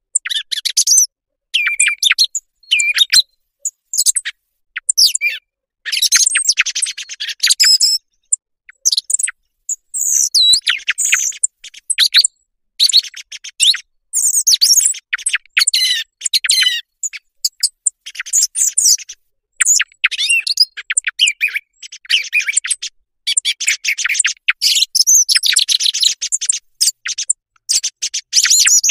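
Recorded song thrush song used as a hunting lure: a run of varied high whistled and chirping phrases, each a second or two long, broken by short silent gaps.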